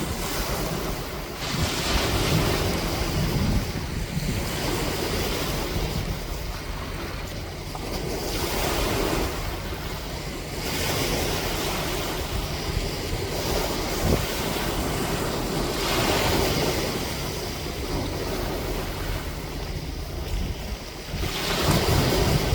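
Ocean waves, the surf rising and washing in about every five seconds, with wind buffeting the microphone.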